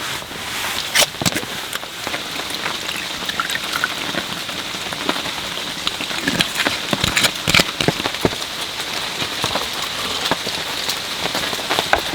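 Steady rain falling, with the sharp taps of individual drops landing irregularly on a nearby surface.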